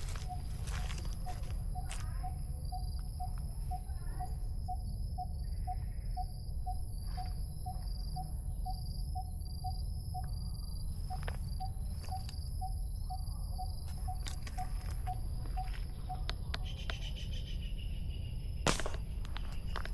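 Greater coucal giving its deep hooting call, a long even series of short low notes at about two a second that stops a few seconds before the end, over a shrill trilling insect.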